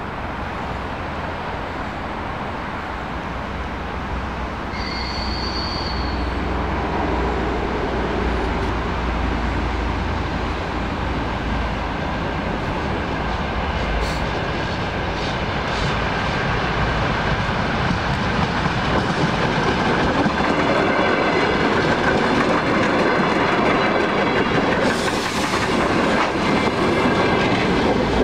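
Passenger train approaching on the rails, its running noise growing steadily louder until the cars pass close by near the end, with wheel noise on the track. A short high-pitched tone sounds about five seconds in.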